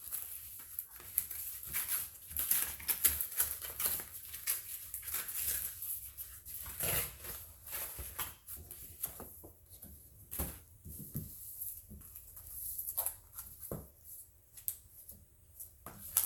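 Cardboard and plastic packaging being handled while a shipping box of comics is opened and the books are taken out: irregular rustling, crinkling and light scrapes and clicks.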